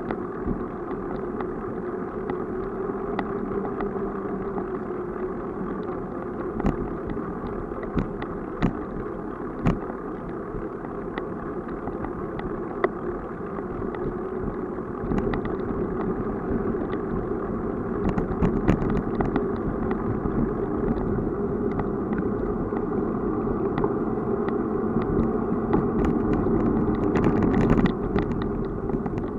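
Bicycle riding along a woodland path: steady tyre and rolling noise with scattered short clicks and rattles from bumps, getting louder about halfway through.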